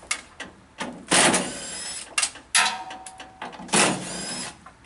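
Several sharp metal knocks and clanks from a truck cab door being worked, a few of them ringing briefly.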